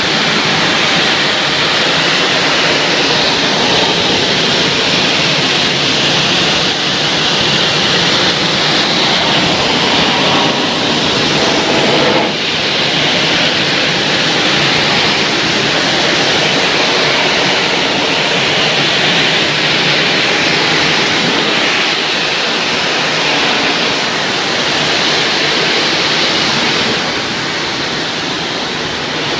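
Steady spray of water from a pressure washer jet, washing an air conditioner condenser's coils.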